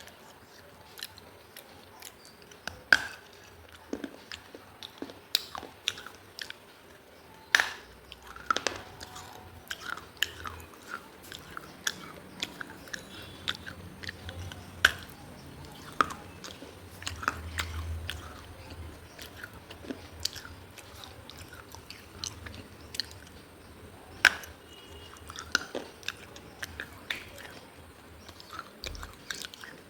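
Close-miked biting and chewing of pieces of a fired clay diya (earthen lamp): irregular sharp cracks and crunches, with a few louder snaps several seconds apart.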